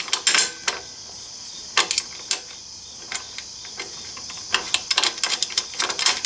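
Light metal clicks and clinks as an aluminium footpeg brace, its bracket and bolts are handled and fitted by hand. The clicks come in clusters: a few at the start, a couple around two seconds in, and a quick run of them near the end, over a steady high hiss.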